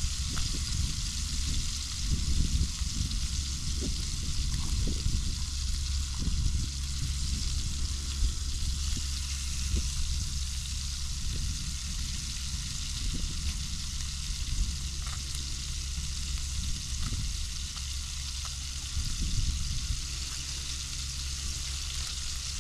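Redfish fillets sizzling steadily in a frying pan on a portable gas camp stove, with a low uneven rumble underneath.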